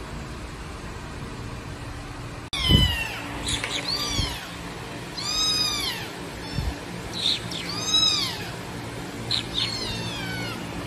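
Baby black kitten meowing loudly over and over, about eight high meows that rise and fall in pitch, some short and some drawn out. A steady low hum comes first; the meowing begins about two and a half seconds in with a low thump, and a couple more soft thumps fall between the meows.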